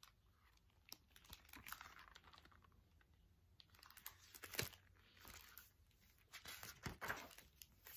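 Faint, scattered clicks and rustles of a hardcover picture book being handled and its page turned.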